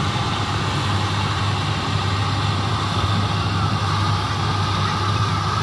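Combine harvester running steadily while cutting wheat: a constant engine drone with a strong low hum and a whirring mechanical noise above it.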